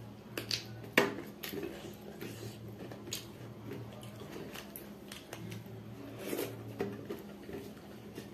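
Eating by hand: chewing a mouthful of rice, and fingers mixing rice and curry gravy on a steel plate, with small irregular clicks and scrapes of fingers against the metal. The sharpest click comes about a second in.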